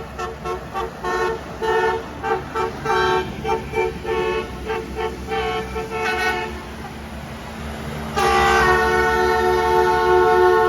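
Horns on a passing railway maintenance train, sounding a multi-tone chord. A quick string of short toots runs for about six seconds, then after a short lull comes one long, continuous blast starting about eight seconds in.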